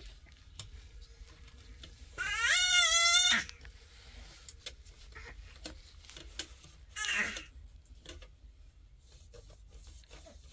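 An animal's drawn-out call with a quavering pitch, about a second long, followed a few seconds later by a shorter one.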